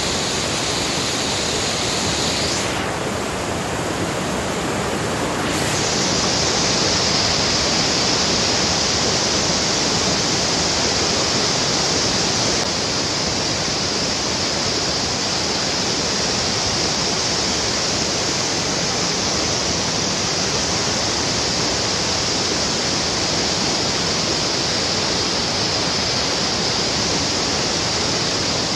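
Steady rushing of a fast river over rocks and rapids.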